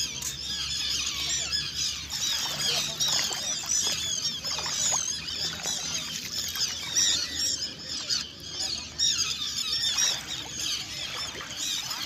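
A large flock of seabirds calling overhead: a constant chatter of many overlapping, high, wavering calls.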